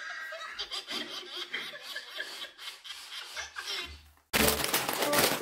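Soft laughter in short breaths. About four seconds in it cuts off abruptly into much louder music.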